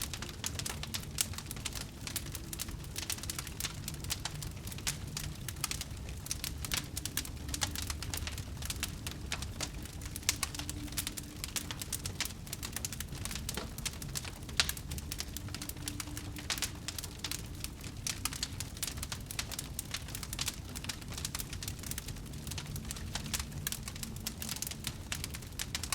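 Wood fire crackling steadily, with many small irregular pops over a low rumble and one sharper pop about midway.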